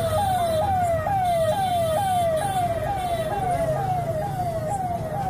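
An electronic siren sounding steadily in a repeating pattern: a tone that glides down, then jumps back up, about twice a second.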